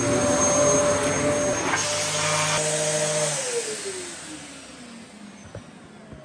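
Dyson DC07 upright vacuum cleaner running steadily, then switched off about three seconds in, its motor winding down with a falling whine that fades over the next couple of seconds.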